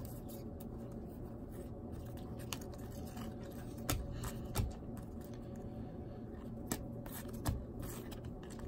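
Trading cards being handled one at a time from a stack held in the hand: scattered soft clicks and slides of card stock, a few of them sharper, over a steady low hum.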